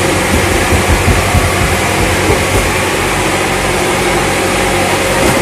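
Steady low drone of a running machine, a constant hum under a broad hiss, with a few soft knocks early on as cardboard cartons are handled.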